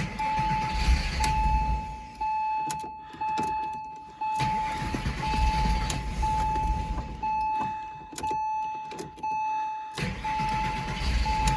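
Porsche Boxster 986 flat-six being cranked on its starter without catching, in three long cranks, because the new fuel filter and lines are still filling with fuel. A beeping tone repeats about once a second throughout.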